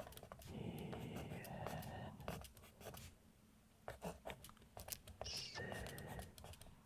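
Pencil writing on paper, close-miked: two stretches of scratchy strokes with a few light taps between them.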